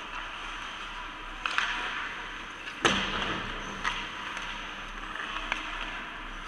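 Ice hockey play heard from beside the net: skate blades scraping the ice, with sharp cracks of sticks on the puck, the loudest about three seconds in and smaller ones before and after it.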